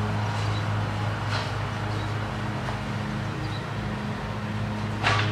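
Outdoor background noise: a steady low hum under an even hiss, with a soft swell about a second in and another near the end.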